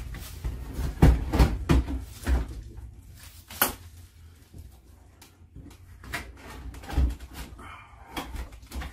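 Scattered knocks and clunks of a window air conditioner's plastic casing and side panel bumping against the window frame as it is pushed and shifted into place. A cluster of knocks comes about a second in and more come later, over a low hum.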